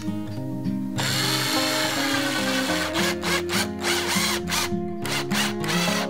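Cordless drill driving a brass wood screw into a wooden beehive frame: the motor whirs from about a second in, its pitch rising and falling as the screw goes in. Background music plays throughout.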